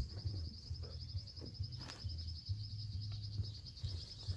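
An insect trills steadily outdoors as a continuous, rapidly pulsing high-pitched buzz. Under it runs a low rumble, with a couple of light knocks, one at the start and one about two seconds in.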